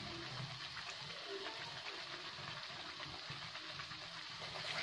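Thick tomato and yogurt masala sizzling in a kadai as cashew paste is poured into it: a steady, low crackling sizzle.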